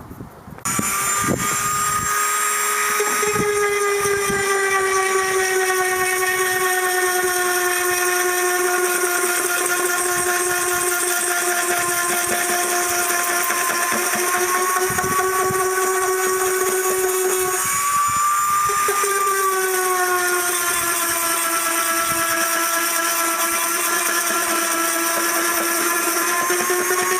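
Dremel rotary tool with a sanding drum running at high speed on the flesh side of a dried sheep pelt, a steady high whine that starts about a second in. Its pitch sags and comes back once, about two-thirds of the way through, as the drum bears harder on the hide.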